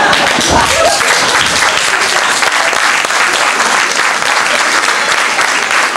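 Loud audience applause, many hands clapping steadily.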